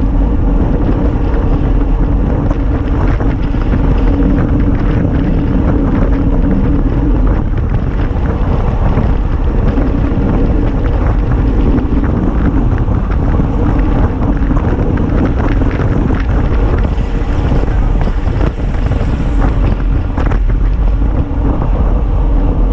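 Steady wind noise buffeting the microphone of a handlebar-mounted action camera on a road bike riding at speed, over the rumble of tyres on asphalt, with small clicks and rattles from the bike throughout.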